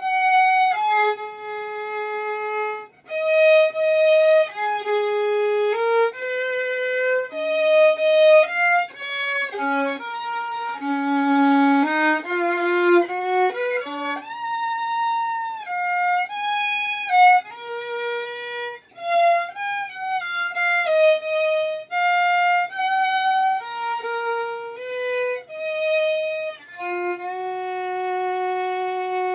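Solo violin playing a melody, one note at a time with short breaks between phrases, ending on a long held note near the end.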